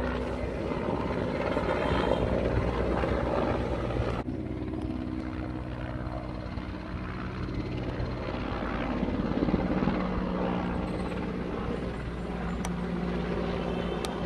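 Police helicopter flying overhead, its rotor and engines running with a steady low, beating drone. The sound turns abruptly duller about four seconds in.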